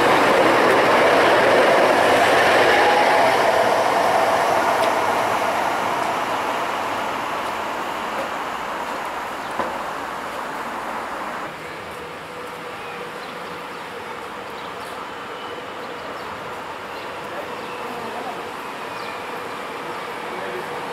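Alstom Citadis Dualis electric tram-train leaving the platform: its running noise is loud at first and fades away over about ten seconds. After an abrupt change about halfway through, a quieter, steady sound of another tram-train approaching grows slowly louder.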